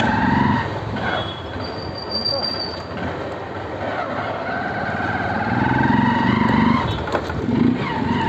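Motorcycle engine running as the bike is ridden along a street, with road and wind noise and a brief high-pitched squeal about two seconds in.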